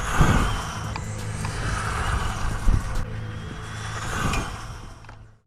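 Brushless-motor RC car running at high speed, its motor whine and tyre noise swelling and fading several times as it passes. The sound cuts off abruptly near the end.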